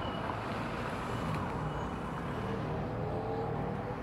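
Street traffic: cars driving past, with a steady road noise and one engine note rising near the end.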